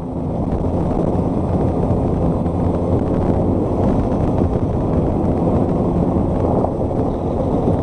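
Motorcycle riding at a steady speed: wind rumbling over the microphone with the engine running underneath.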